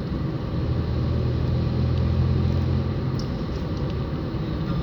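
Inside a car's cabin while driving at about 30 mph: a steady engine hum and road noise. The low hum grows a little louder about half a second in and eases back after about three seconds.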